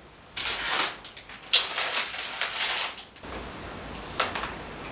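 A plastic candy wrapper crinkling and rustling in several bursts over about three seconds as a heart-shaped lollipop is unwrapped. A short smack follows near the end as the lollipop is licked.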